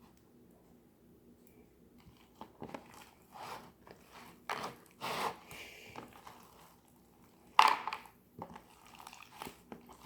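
Hands squeezing and kneading slime mixed with lumps of Play-Doh: irregular sticky squelches and crackles, with one louder squish about seven and a half seconds in.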